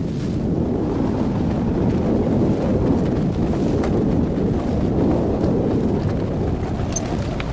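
Wind buffeting the microphone aboard a small sailboat under way: a steady low rumble of noise.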